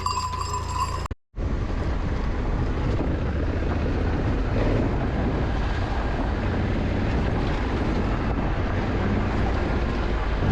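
Honda Africa Twin parallel-twin motorcycle engines running steadily with road and wind noise while riding a dirt trail. A different sound cuts off abruptly about a second in, with a moment of silence before the riding noise begins.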